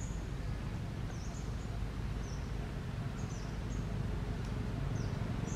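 Small birds chirping: short, very high chirps at irregular intervals, about seven in all, over a steady low outdoor rumble.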